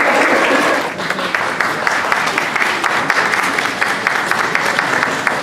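A crowd applauding. The sound dips about a second in, then goes on as many separate claps.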